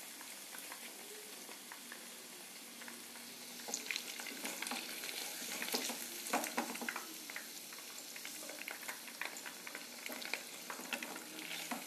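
Cornflour-coated paneer cubes deep-frying in hot oil in a kadhai, a steady sizzle. From about four seconds in, a plastic slotted ladle scrapes and taps against the pan in scattered clicks as the cubes are scooped out.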